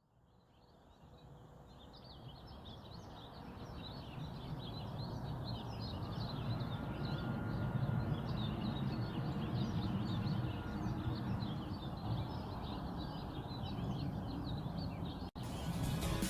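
Many small birds chirping and twittering together in a dense, continuous chorus over a low steady rumble, fading in from silence over the first several seconds.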